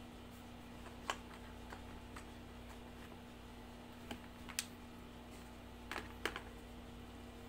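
Scattered light clicks and taps from handling a charging cable and cardboard packaging, about seven in all, over the steady hum of an air-conditioning unit.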